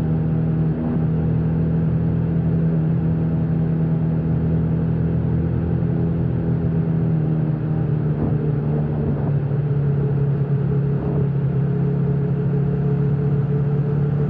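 Motorcycle engine running steadily while riding, with a slight shift in pitch about halfway through.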